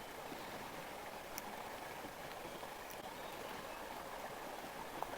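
Faint, steady river water flowing and lapping, with a couple of small clicks.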